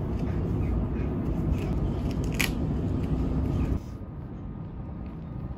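Velcro strap of a knee pad being pulled and pressed shut, with a short sharp rasp about two and a half seconds in, over a steady low rumble. A little before the end the rumble drops away abruptly to a quieter background.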